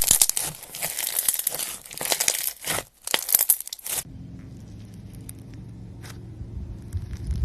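Slime being handled and pressed, giving a dense crackling, crinkling sound. About four seconds in it stops abruptly, leaving a quieter low rumble with a few faint soft clicks.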